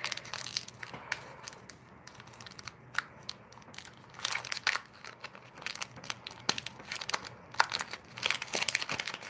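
Foil wrapper of a Pokémon booster pack crinkling and tearing as it is opened by hand, in several bursts of crackling with short pauses between.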